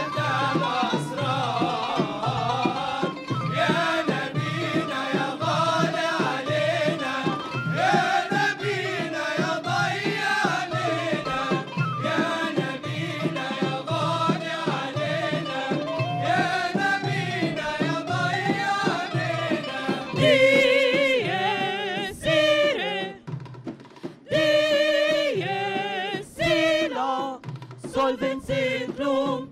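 Choir and solo voices singing a religious chant over frame drums beating a steady rhythm. About twenty seconds in, voices with a wide, wavering vibrato come forward, with a short drop in loudness a few seconds later.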